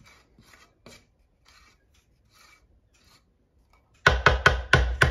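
Wooden spoon scraping thick fudge off a stainless saucepan and spreading it in a metal baking pan: faint, scattered scrapes at first, then, about four seconds in, a loud, rapid run of rasping strokes, about six a second.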